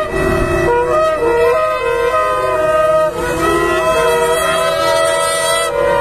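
Several long, twisted shofars blown together, holding overlapping notes at different pitches that shift in steps as the players move between tones. The blasts falter briefly about three seconds in, then carry on.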